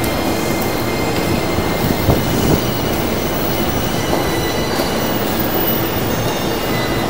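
Moving train heard from inside a car: a steady rumble of wheels on rail with thin, high wheel squeal over it, and two short knocks a little after two seconds in.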